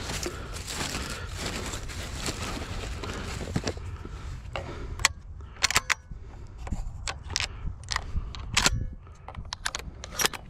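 Shotgun being loaded by hand: a scatter of sharp metallic clicks and clacks as shells are handled and pushed into the gun, after a few seconds of rustling.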